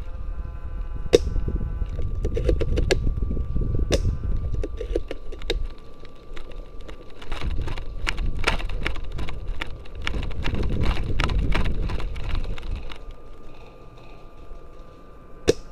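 Rumbling handling noise from a rifle-mounted camera on the move, with a run of crackling footsteps on dry twigs and needles in the middle and a few single sharp clicks.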